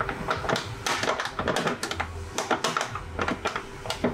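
Quick, irregular clicks and clatter of a hose and a hose clamp being fitted by hand onto an automatic transmission's cooler line.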